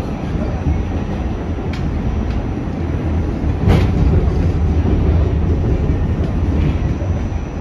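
R46 subway car running at speed, heard from a rider's position: a steady low rumble of wheels and running gear, with occasional sharp clicks from rail joints. The loudest click comes about three and a half seconds in.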